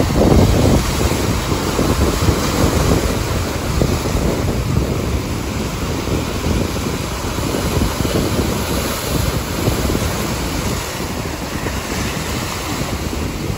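Strong sea wind buffeting the microphone in gusty low rumbles, over surf breaking and washing across shore rocks. The wind is strongest about a second in.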